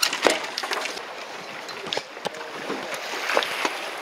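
Water sloshing against a small boat's hull with wind noise, and a few light knocks from gear on the deck, busiest in the first second.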